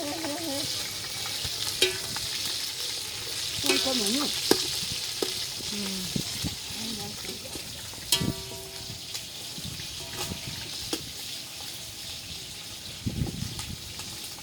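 Steady sizzling of food cooking over a wood fire, with scattered sharp clicks and knocks.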